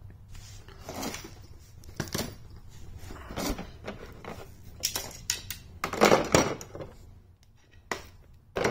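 Hands handling fly rod sections and kit pieces: scattered light knocks, clicks and rustling, the busiest about six seconds in.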